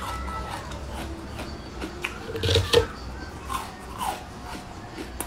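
Close-up eating sounds of colored ice: mouth noises and crunching bites, loudest about two and a half seconds in.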